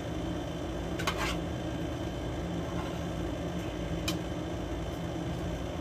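Steady machine hum in a small room, with a few light clinks of utensils or hands on metal plates: one at the start, a quick pair about a second in, and one around four seconds in.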